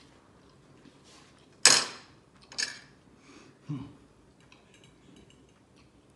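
Fork and spoon scraping and clinking against a plate. The loudest scrape comes about a second and a half in, another about a second later, then a softer knock and a few small clicks.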